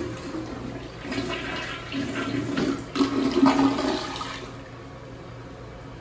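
Gerber tank toilet flushed with its trip lever: a brief sound of the handle, then water rushing into the bowl, growing loudest about three seconds in and dying away by about four and a half seconds.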